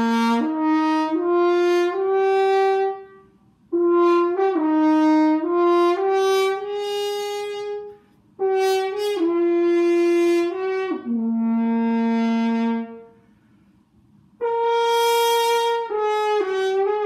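Newly assembled brass natural horn played with a mouthpiece: held notes stepping up and down through the valveless horn's open notes, in four phrases with short pauses between, as a first test that the horn speaks.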